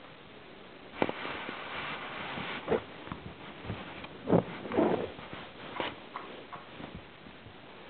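Rustling and several soft thumps from Siberian kittens scrambling about on a fabric sofa. The loudest thump comes a little past the middle.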